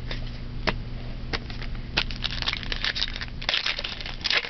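Trading card pack wrapper crinkling and crackling as it is handled and torn open: a few separate crackles, then a dense run of crinkling in the second half.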